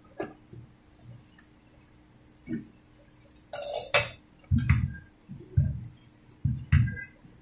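Handling noise from moving the welding machine's circuit board and metal chassis: a few light clicks and a clink, then four dull thumps in the second half, over a faint steady hum.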